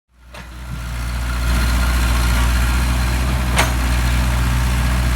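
Sumitomo SH60 excavator's diesel engine running steadily, fading in over the first second, with one short click about three and a half seconds in.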